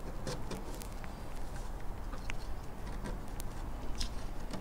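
Softened finish being scraped off a wooden radio-cabinet leg by hand: a run of short, irregular scratchy clicks.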